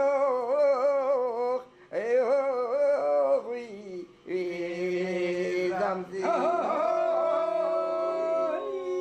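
Male voice singing an Assyrian raweh: a slow melody in long phrases with short breaks between them, the pitch wavering and ornamented, over steady held lower notes. The last phrase ends on one long held note.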